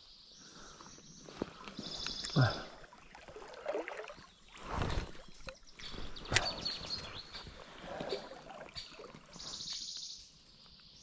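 Shallow river water sloshing and splashing around the legs of a wading angler in irregular surges, with a sharp knock about six seconds in. Two short high trills sound briefly, near the start and near the end.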